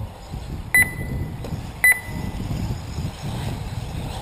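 Two short, high electronic beeps about a second apart, over a steady low rumble.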